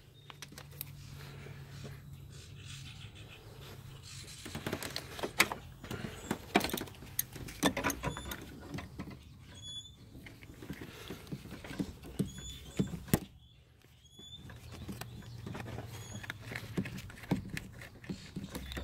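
Scattered clicks and light metallic knocks of a ratchet and long deep socket working an 8mm bolt in an engine bay, over a low steady hum.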